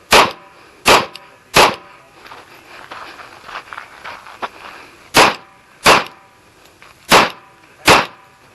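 Kimber Custom II 1911 pistol in .45 ACP firing seven shots: a string of three about 0.7 s apart, a pause of about three and a half seconds, then two pairs of shots.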